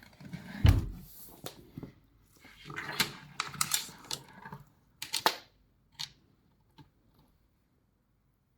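A heavy thump about a second in, then scattered clicks and scrapes of a large snapping turtle's claws and shell on a hard floor as it crawls.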